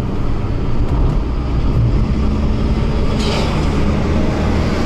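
Car road noise heard from inside the cabin while driving at speed: a steady low drone of engine and tyres, with a short hiss about three seconds in.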